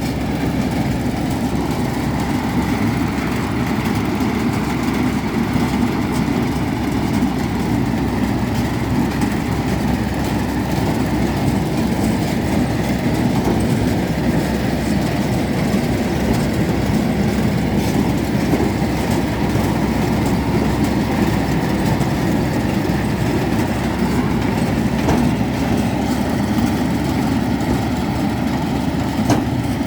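Tractor and two-row corn picker running steadily while picking field corn: a continuous engine and machinery noise.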